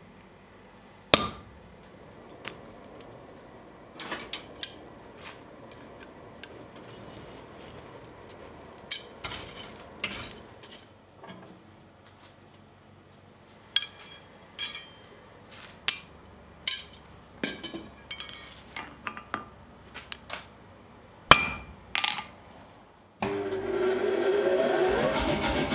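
Hammer blows and metal clinks from hand forging work on steel: a sharp strike about a second in, scattered lighter taps and tool clatter, then a hard blow near the end as a handled punch is driven into a hot steel block. In the last seconds a steady, louder sound starts.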